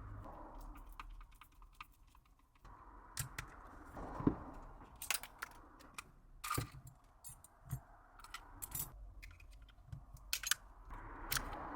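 Irregular small clicks and taps of hard parts being handled on a workbench, a dozen or so sharp ticks at uneven spacing over a low steady hum.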